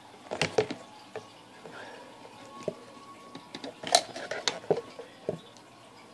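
Thin clear plastic food container being handled, with sharp plastic clicks and knocks in two short clusters, the first about half a second in and the second, louder, around four seconds in.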